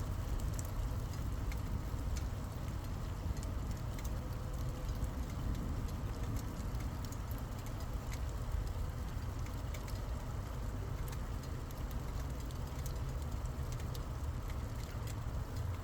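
Steady rain during a thunderstorm, with scattered drip ticks over a low continuous rumble.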